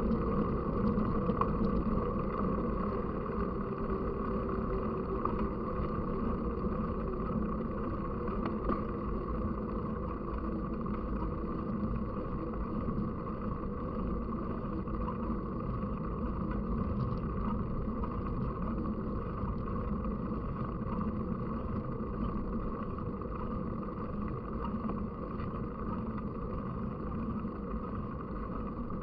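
Steady rumbling ride noise of a mountain bike on the move: tyre roll and wind on the microphone, unbroken throughout.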